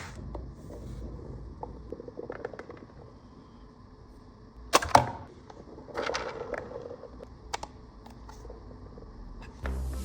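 Sharp plastic clicks and snaps from a toy M16A2 gel blaster. The two loudest come close together about five seconds in, with a few more around six seconds and near the end, and faint ticks earlier.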